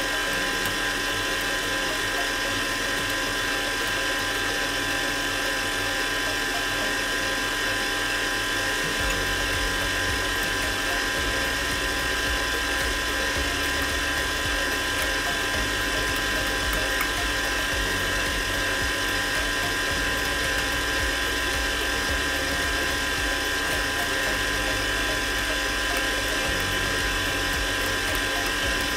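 Electric mixer running steadily, its motor whining at a constant speed as it beats cream cheese and sugar smooth.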